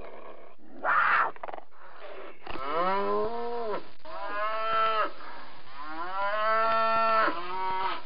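Cattle mooing: four long moos in a row from about two and a half seconds in, each bending up in pitch at the start and down at the end. About a second in, before them, a short breathy rasp.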